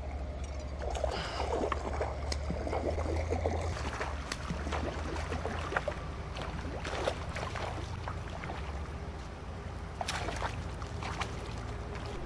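Hooked bass thrashing and splashing at the water's surface as it is reeled in and landed, with irregular splashes strongest in the first few seconds and a burst of sharp splashes again near the end.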